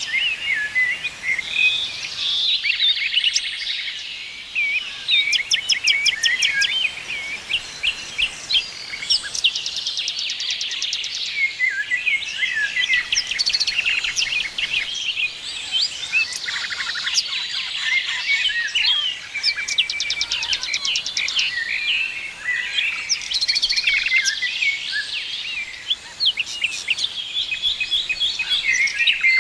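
A chorus of many songbirds chirping and singing at once, with short overlapping calls and quick pitch glides. Every few seconds a very high, rapid trill sounds over the top.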